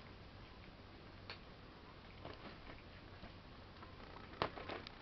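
Faint, irregular light clicks and scuffles from cats and kittens moving about on the floor, with a sharper click and a short cluster of clicks near the end.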